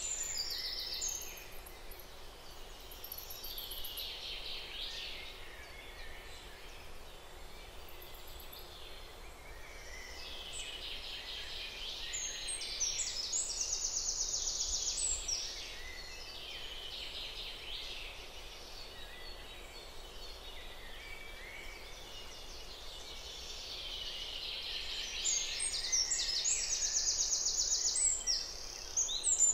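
Natural birdsong ambience: birds chirping, with fast rapid trills that grow louder about halfway through and again near the end.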